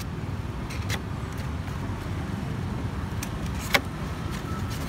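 Street traffic: a steady low rumble of vehicle engines, with a few light clicks and one sharp knock about three-quarters of the way through.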